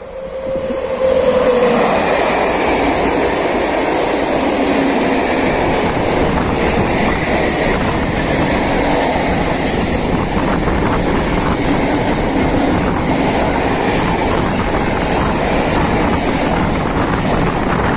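Freight train of silo wagons passing close: a loud, steady rumble of steel wheels on the rails with the clickety-clack of wheelsets over rail joints, building up about a second in. A brief steady tone sounds right at the start.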